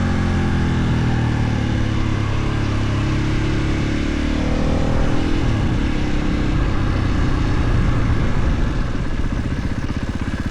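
Husqvarna FE 450 single-cylinder four-stroke engine heard onboard, its revs falling as the bike slows, then dropping to idle near the end with evenly spaced firing pulses.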